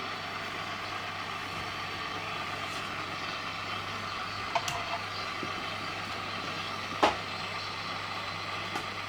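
HMV valve clock radio's speaker giving steady static hiss over a low hum, with a couple of sharp crackles about halfway through and about two-thirds of the way in. The set is receiving but not yet on a station.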